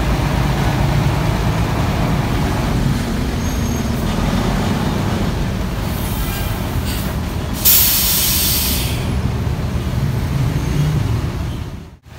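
Intercity bus's diesel engine running low and steady, with a loud hiss of compressed air released from the air brakes about eight seconds in, lasting about a second. The sound fades out near the end.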